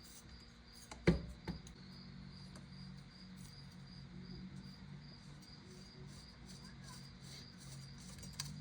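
Small hardware being handled on the air rifle: a sharp knock about a second in and a lighter click just after as a rail piece is set in place, then faint fiddling as screws are started by hand. A faint steady high-pitched tone runs underneath.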